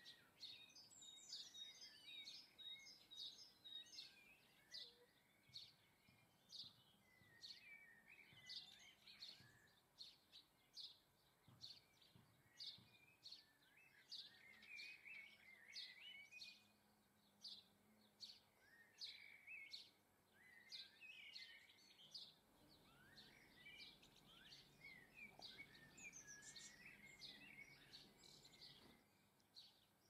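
Small garden birds calling faintly: a steady string of short, sharp high chirps, about one or two a second, mixed with softer twittering.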